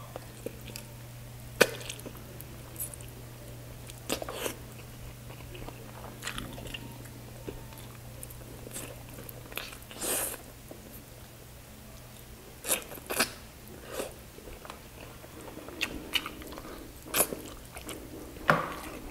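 A man chewing and biting into saucy turmeric chicken, with wet mouth smacks and sharp clicks scattered through. A low steady hum underneath stops about two-thirds of the way through.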